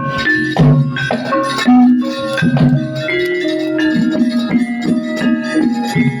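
Javanese gamelan music: tuned metal instruments struck in a quick, steady run of notes, each note ringing on over the next.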